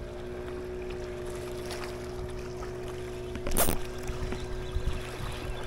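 Steady drone of a motorboat engine out on the water, and about three and a half seconds in a single sharp swish of a fishing rod being cast.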